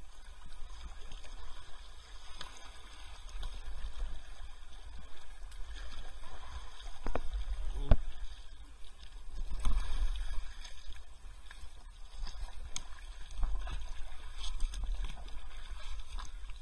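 Kayak paddles dipping and pulling through river water, the splashing swelling and fading with the strokes, with a few sharp knocks. A steady low rumble lies underneath.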